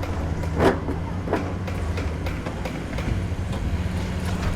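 An engine running steadily at a low, even pitch, with a few sharp knocks, the loudest about a second in.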